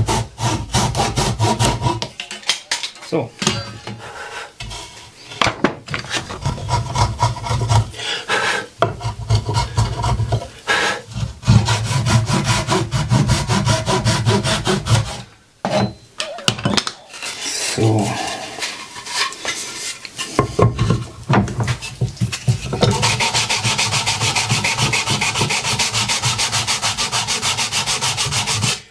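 A Japanese pull saw cutting a softwood board by hand, in bouts of rapid strokes with short pauses between. Over the last six seconds, an even run of fast scraping strokes as the wood is shaped by hand.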